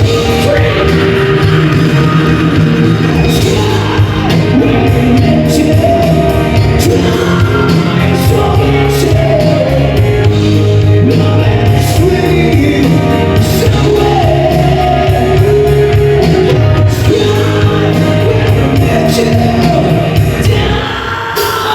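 A live band playing loudly, with a singer over a steady drum beat and bass, and some shouts.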